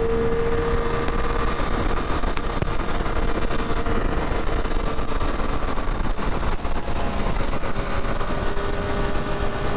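Motorcycle riding at a steady cruise: the engine holds a nearly constant pitch under heavy wind rush.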